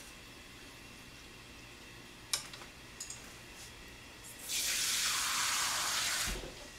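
Kitchen sink tap running for about two seconds near the end, after a couple of light clicks.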